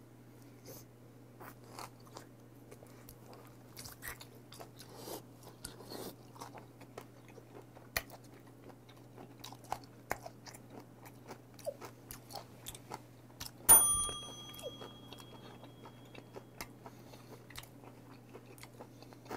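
Close-miked chewing of raw beef, with many small wet mouth clicks and smacks. A little past halfway there is a single sharp metallic clink that rings on for about a second. A steady low hum runs underneath.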